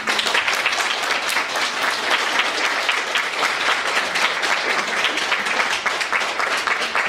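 Audience applauding, with steady, dense clapping from many hands.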